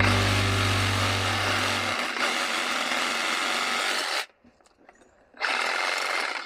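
A hand-held power tool running in two bursts, cutting off about four seconds in and starting again about a second later.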